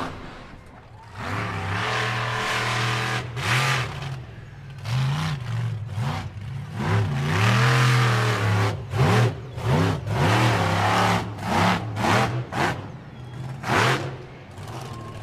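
Electric motor of a Losi LMT RC monster truck whining up and down in repeated short throttle bursts, with its tyres churning loose infield dirt.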